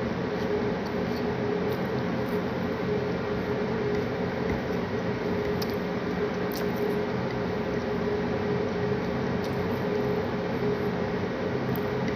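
Steady mechanical hum of a household appliance, holding one constant tone, with a few faint soft clicks of food being eaten by hand.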